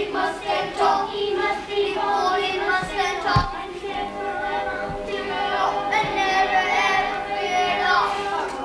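A group of children singing a song together on stage, with one brief low thump about three and a half seconds in.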